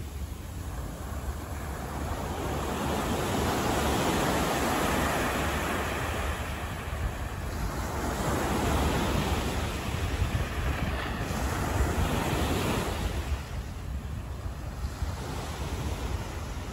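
Road traffic going past, each vehicle a whoosh of tyre noise that swells and fades over a few seconds, over a low rumble of wind on the microphone.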